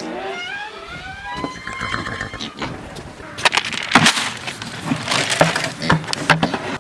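A horse whinnying: a long, wavering call that slides in pitch. It is followed by a run of sharp knocks and clatter in the second half.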